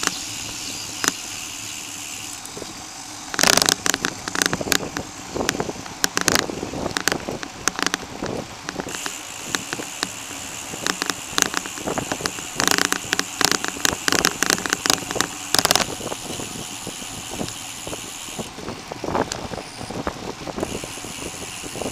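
A bicycle riding along a paved path, heard from the handlebars: steady wind and tyre hiss with frequent rattling clicks. The clicks come in dense clusters, loudest about three and a half seconds in and again from about twelve to sixteen seconds in.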